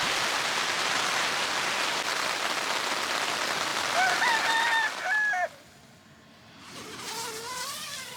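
Steady heavy rain, then a rooster crowing once about four seconds in. The rain cuts off just after the crow, and a soft music melody begins near the end.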